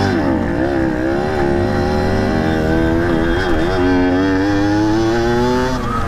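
50cc two-stroke dirt bike engine running under the rider, the revs rising and falling as it rides over rough ground. The pitch dips about four seconds in, then climbs again.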